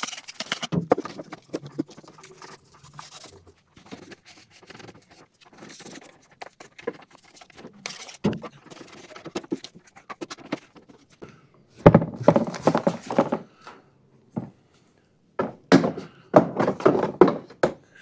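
A rag rubbing over a mower deck with scattered light clicks, then clusters of knocks and thunks from mower parts being handled, the loudest a sharp knock about two-thirds of the way in.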